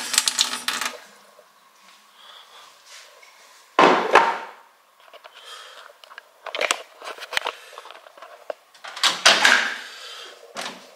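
A kitchen tap runs into a stainless-steel sink and shuts off about a second in. A few separate clunks and knocks follow, the louder ones about four and nine seconds in, among them the door of a Panasonic dial microwave being opened.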